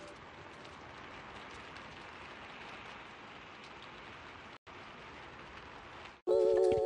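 Steady soft hiss like light rain, with a brief dropout about four and a half seconds in. It cuts off just after six seconds as music with held, wavering chords starts.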